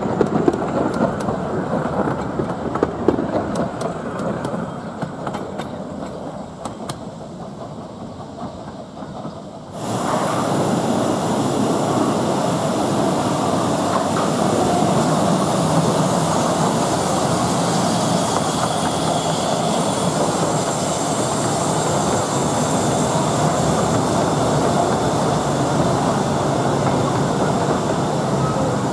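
15-inch-gauge railway carriages rolling past on the track, the wheel noise fading away. About ten seconds in it changes abruptly to a louder, steady running noise of another train's carriages passing under a station roof.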